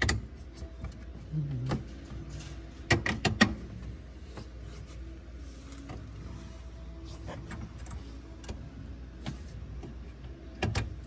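Metal clinks and knocks of a bolt, washers and spacer being worked through a lift bracket and shock mount by hand, with a cluster of louder knocks about three seconds in and another near the end, over a steady low hum.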